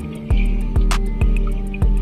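Background music with a steady beat: a deep bass note about twice a second under sustained notes and light ticking percussion.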